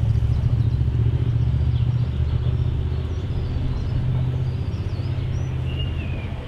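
Snaefell Mountain Railway electric tramcar running along the track: a steady low rumble of its motors and wheels on the rails, easing slightly near the end.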